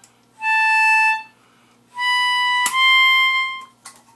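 Toy saxophone playing three held notes of about a second each, each a little higher than the one before, with a short click between the second and third.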